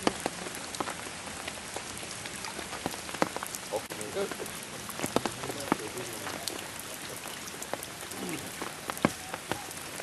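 Steady rain falling, with sharp individual drops ticking close by at irregular intervals.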